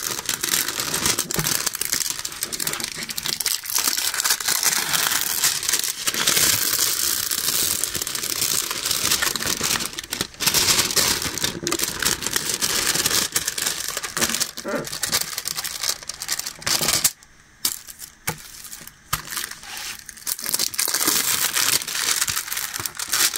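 Plastic cover film on a wrinkled diamond painting canvas crinkling as the canvas is handled and smoothed to work the creases out, with a brief lull about two-thirds of the way through.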